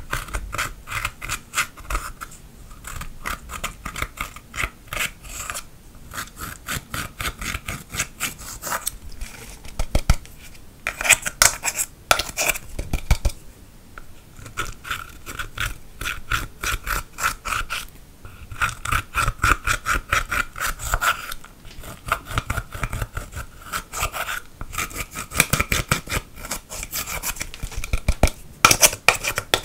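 A pointed metal tool scraping and crumbling pressed eyeshadow out of the pans of a plastic palette: rapid, repeated scratching strokes in runs, with short pauses between.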